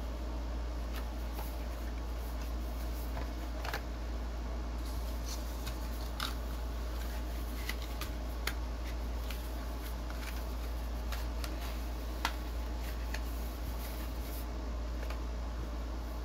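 Light clicks and taps of cardboard packaging boxes being handled, scattered irregularly over a steady low hum.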